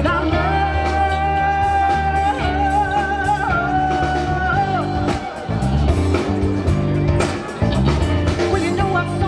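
Live rock band playing a funky groove on electric guitar, bass guitar and drums, with a female lead vocal holding two long, wavering notes in the first half before the band carries on.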